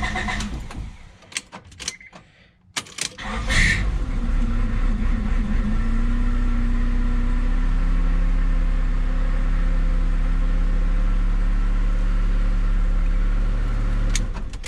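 Honda Accord engine started on a freshly installed OEM starter: it catches about three seconds in, its idle settles down slightly over the next few seconds, then it idles steadily until the sound drops away near the end.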